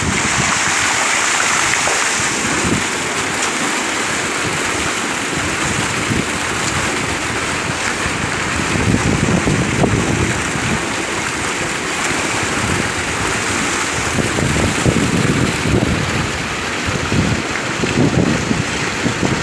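Steady rush of a heavy jet of pump water gushing from an outlet pipe into a brick tank, churning the surface, with the irregular sloshes of a man moving in the water.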